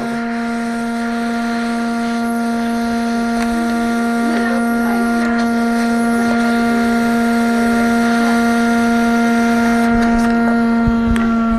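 Hot air rework station blowing a steady, loud hum while heating a chip to desolder it from a circuit board. A few clicks come near the end.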